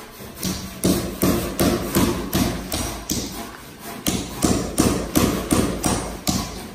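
Hammer blows on a hand-held chisel chipping the rough edge of a concrete wall, a steady run of sharp knocks about three a second.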